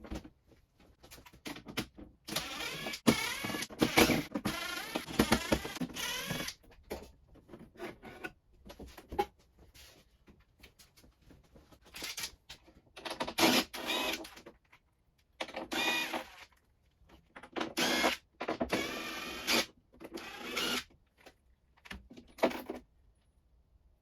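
A small electric motor, such as a power tool's, running in about five separate bursts, its whine wavering in pitch within each burst.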